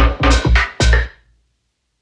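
Electronic music with a drum machine: heavy booming hits about twice a second under synthesizer tones, ending about a second in.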